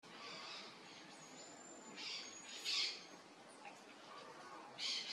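Black-tufted marmoset calling: long, thin, very high whistles, each held steady for up to about a second, amid short hissy bursts.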